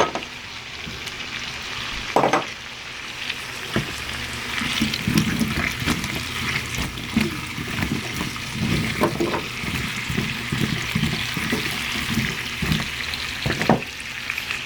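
Sliced red potatoes and onion rings sizzling in butter in a skillet over high heat, with a few knocks and scrapes of a utensil stirring them.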